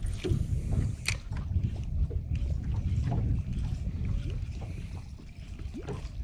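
Small boat sitting on calm estuary water: a steady low rumble, with a few scattered clicks and knocks.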